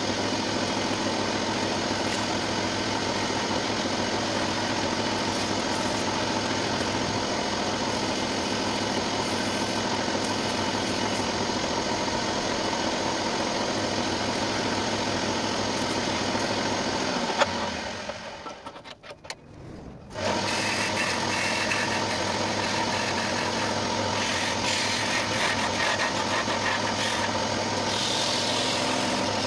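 Wood lathe motor running with a steady hum while the spinning wooden spindle is sanded. About 17 seconds in there is a click, and the motor winds down almost to a stop. It starts again abruptly about three seconds later. Scratchy bursts follow as abrasive and then a turning tool work against the turning wood near the end.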